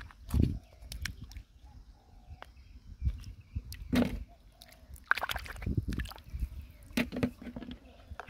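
Irregular sloshing in shallow water, broken by scattered sharp clicks and low knocks.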